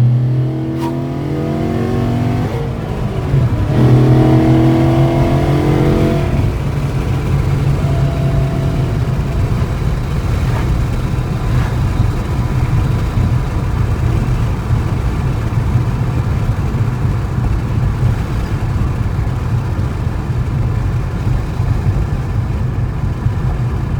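2012 Ford Mustang Boss 302's 5.0-litre V8 under way, revs climbing about four seconds in, then a steady engine drone while cruising.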